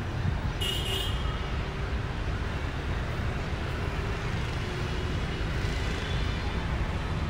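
Steady low rumble of street traffic and the bus's own running, heard from the open top deck of a double-decker tour bus, with a brief high-pitched hiss about a second in.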